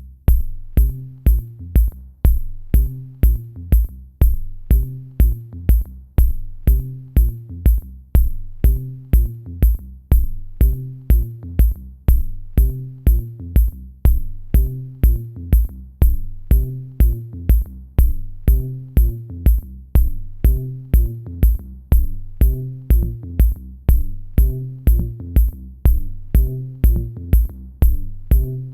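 Electronic background music with a steady drum-machine beat, about two kicks a second, and a repeating bass line.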